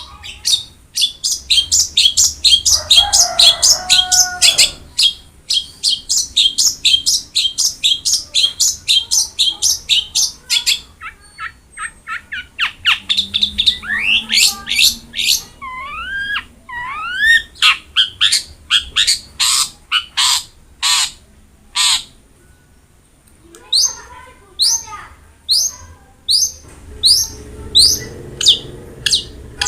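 Long-tailed shrike (cendet) singing hard: long runs of sharp, rapid descending notes, several a second, broken in the middle by varied phrases of rising and falling whistles. A brief lower, harsher call comes about three seconds in, and there is a short pause about three quarters of the way through.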